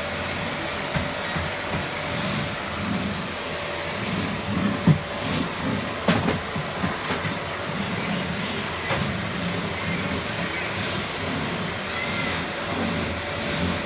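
Vacuum cleaner running steadily, a constant rushing noise with a steady whine, and a few knocks on top, the loudest about five seconds in.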